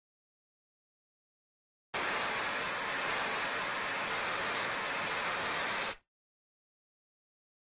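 Sound effect of a spacecraft descent module's side thrusters firing: a steady, even hiss that starts abruptly about two seconds in and cuts off sharply about four seconds later.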